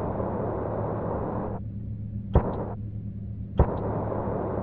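Sci-fi sound effects for drifting escape pods: a steady low hum with a hiss over it, broken by two short, sharp double clicks, the first about two and a half seconds in and the second about a second later.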